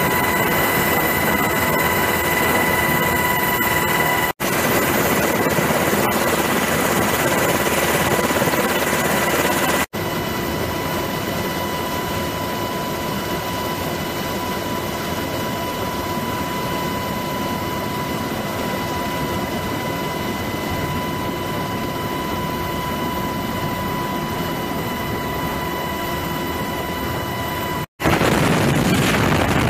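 UH-60 Black Hawk helicopter running, its rotors and turbine engines making a steady noise with a constant high whine. The sound is cut into several shots, and is quieter through the middle stretch where the helicopter is heard from outside.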